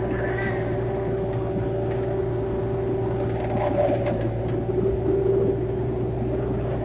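Excavator running steadily with a constant hum and whine, with scattered clicks and knocks. A brief higher squeal comes about three and a half seconds in.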